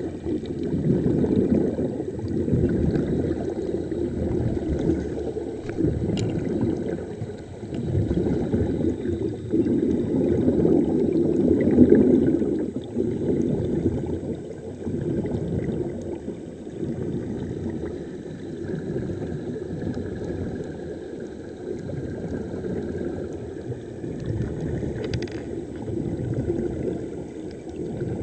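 Muffled underwater recording of air bubbling and gurgling, swelling and fading in irregular surges every second or two.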